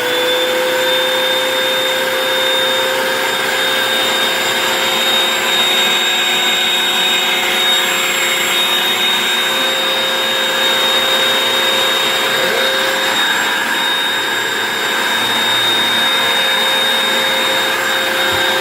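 Household vacuum cleaner running steadily at full speed with a constant motor whine, drawing the air out of a sealed garbage bag holding a pillow.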